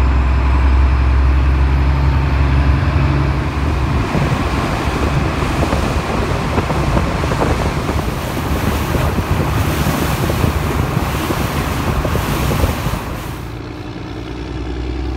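Small boat under way: a steady low engine drone, with wind buffeting the microphone and water rushing past the hull. The engine note turns rougher about four seconds in, and the whole sound eases near the end.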